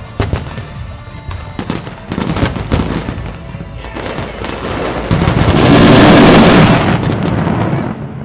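Aerial fireworks bursting in quick bangs and crackles over music. About five seconds in they build into a dense, loud barrage of many shells at once, which fades near the end.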